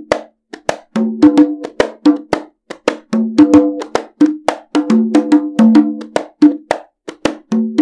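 A pair of Peruvian-made compact travel congas (FV Peru) played by hand in a steady repeating rhythm. Sharp, cracking strokes alternate with ringing notes at a lower and a higher pitch, the pattern coming round about every two seconds.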